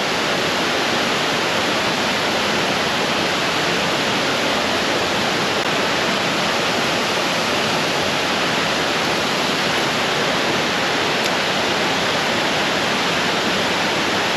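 Creek water rushing where a fast flow pours into the creek: a loud, steady rush without a break.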